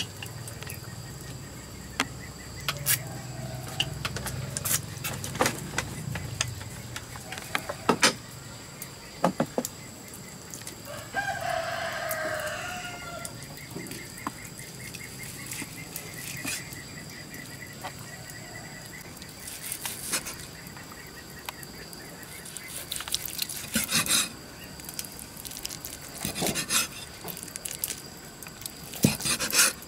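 A rooster crows once, about eleven seconds in, among scattered sharp knocks of a knife and utensils on a wooden chopping board and an iron wok.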